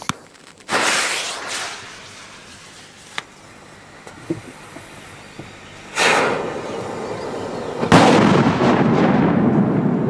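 Large firecrackers exploding: three loud bangs, about a second in, about six seconds in and about eight seconds in, each followed by a long rolling echo, with a few small cracks between them. The last bang is the loudest.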